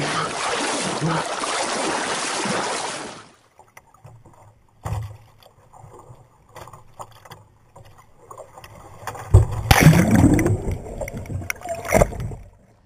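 Water splashing and churning as a large animal thrashes beside a small boat, cutting off about three seconds in. After a few quiet seconds with a single knock, a loud burst of rushing, splashing water with heavy knocks as a fishing kayak is overturned and its paddler goes under.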